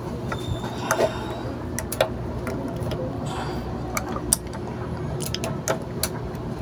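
Irregular small clicks and ticks from handling a flux-core wire spool and its plastic retaining knob on a MIG welder's spool hub, over a steady low hum.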